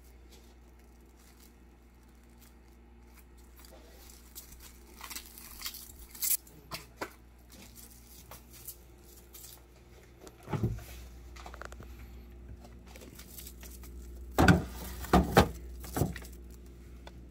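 Plastic cling wrap crinkling and crackling as it is stretched over a bowl, then a thump and a few louder knocks near the end as the covered bowl is set into a freezer.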